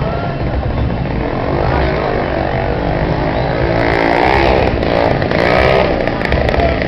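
A street crowd shouting and chanting together over running vehicle engines, with a continuous low rumble. The massed voices swell in the middle of the stretch.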